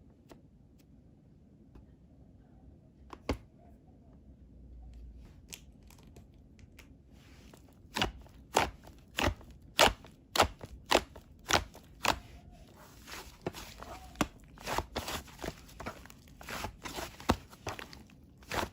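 Pink whipped-cream slime being pressed and squished by hand. Quiet handling at first, then sharp popping clicks from trapped air, roughly every half second from about eight seconds in, turning faster and less regular near the end.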